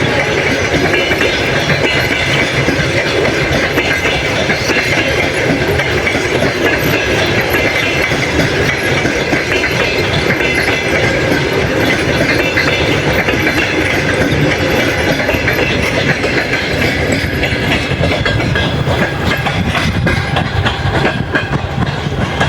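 Passenger train's coaches passing, wheels clacking over the rail joints in a steady run that eases slightly near the end.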